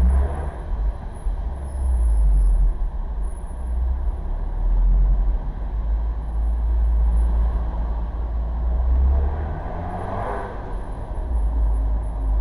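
Vehicle on the move: a steady low rumble of engine and road noise, with a brief louder swell about ten seconds in.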